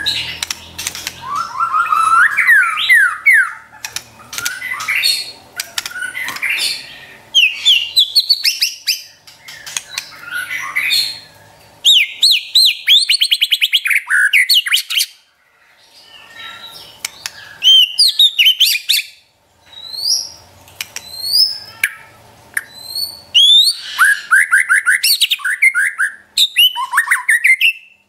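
White-rumped shama (murai batu) singing its fast 'trotol' song: bursts of rapid, repeated whistled notes and sweeps. Each phrase lasts a second or two, with short pauses between phrases.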